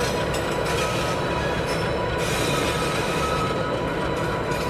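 Norfolk Southern diesel locomotives leading a freight train slowly through curved yard track: steady engine rumble with a thin, high wheel squeal from the curve.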